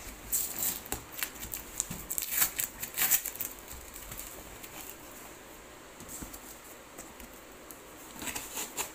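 Cardboard shipping box being opened by hand: a quick run of rustles and scrapes as the flaps are pulled back in the first three seconds, then quieter handling, with a few more rustles near the end.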